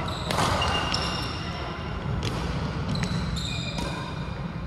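Badminton rally: several sharp racket strikes on the shuttlecock, about one a second, with sneakers squeaking on the court floor in short high squeals between them.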